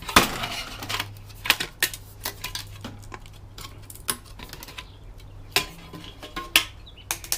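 Irregular clicks and clatter of metal and plastic parts being handled as a telecom interface module is taken apart for its circuit board, with the sharpest knock just after the start.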